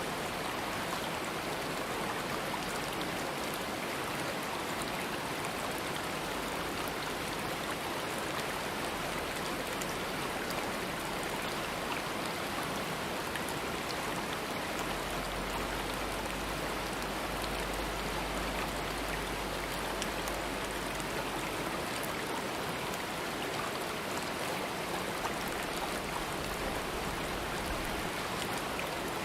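Stream water flowing over rocks, a steady, unbroken rushing.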